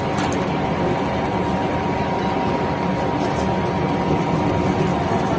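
Waste-cable pre-shredder line running, its belt conveyor carrying cables in: a steady, dense machine noise with a few light ticks.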